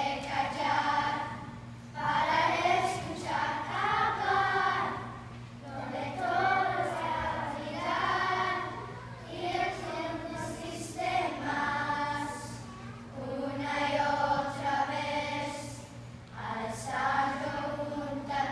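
A group of children singing together as a choir, in phrases a few seconds long with short breaks between.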